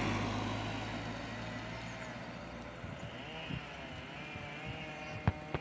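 Road traffic beside the railway: a car's engine and tyre noise, loudest at first and fading away. Near the end come two sharp clicks about a third of a second apart.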